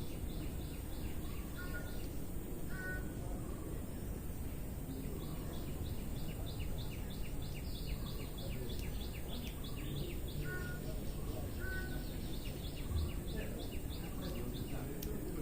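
Birds calling: runs of rapid high chips, about five a second and each run lasting a few seconds, with a few short whistled notes between them. A steady low background noise runs under them.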